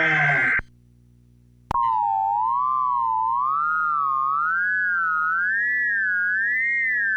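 An electronic tone, edited in, wobbles slowly up and down about once a second and gradually climbs in pitch. It starts with a click a little under two seconds in. Before that comes a half-second snippet of a pitched sound clip, then a short gap of near silence.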